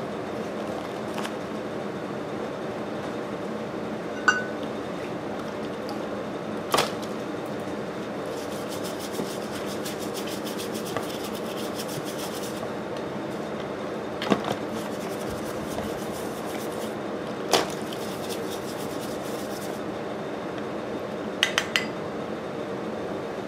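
Metal engine parts clinking and knocking against a plastic tub while they are scrubbed with a brush in lacquer thinner to degrease them: a handful of sharp clinks spread out, three quick ones near the end, and a stretch of brisk bristle scrubbing around the middle. A steady low hum runs underneath.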